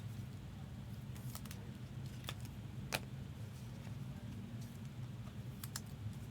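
A few light, scattered clicks and taps from trading cards and plastic card holders being handled, the sharpest about three seconds in, over a steady low hum.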